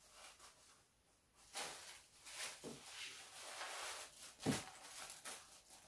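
Tissue packing paper rustling and crinkling as hands dig through a styrofoam packing box, with a single knock about four and a half seconds in.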